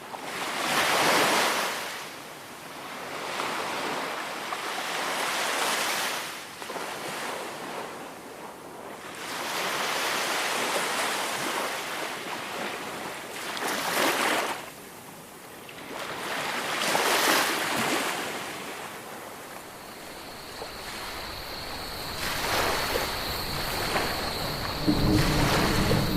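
Ocean waves breaking and washing up a beach, the surf swelling and fading every few seconds. About three-quarters of the way through, a thin steady high tone joins in, and a low hum comes in near the end.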